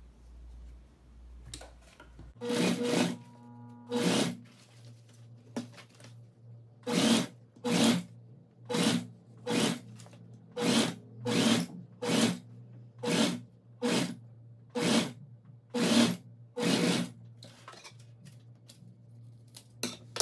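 Domestic sewing machine stitching a zipper onto a synthetic-fabric bag in a string of short runs, roughly one a second over a steady low motor hum. The runs start a couple of seconds in and stop about three seconds before the end.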